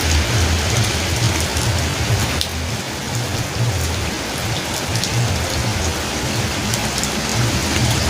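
Rain falling steadily on a road, a dense hiss with scattered sharp drop ticks, over a low uneven rumble.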